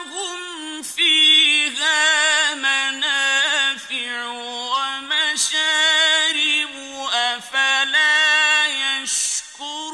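Mujawwad-style Quran recitation: a solo male voice chanting long, ornamented melodic phrases. It begins just after a pause, with short breaks between phrases.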